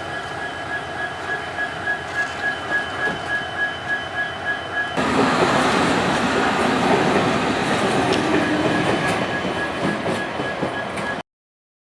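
Train running over the rails, with a steady high-pitched whine and a regular clickety-clack of wheels over rail joints. About five seconds in the rail noise turns suddenly louder and fuller, then cuts off abruptly near the end.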